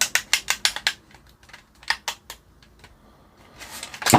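Rapid run of small plastic clicks from the remote control being handled, about nine in the first second, then a few scattered clicks.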